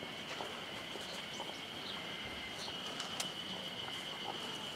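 Quiet outdoor ambience with a steady high-pitched tone throughout and a few faint ticks and chirps.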